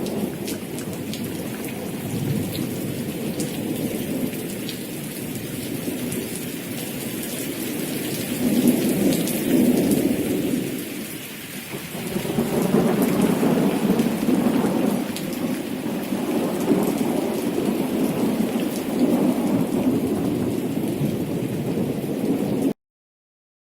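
Thunderstorm: steady heavy rain with low thunder rolling in several swells, the loudest about nine seconds in and again from about thirteen seconds. It cuts off suddenly near the end.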